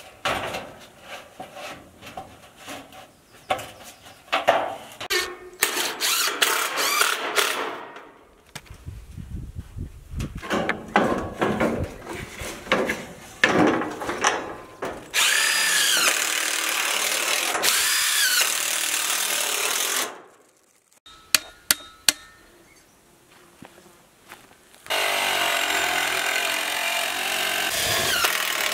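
Metal roofing panels clattering and knocking as they are handled, then a cordless Ridgid impact driver running in two long bursts, about five seconds each, driving screws into the sheet-metal roofing.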